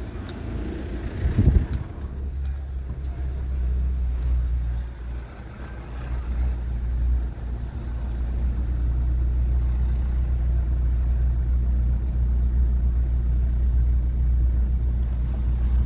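A car running along with a steady low rumble, and a brief louder bump about a second and a half in.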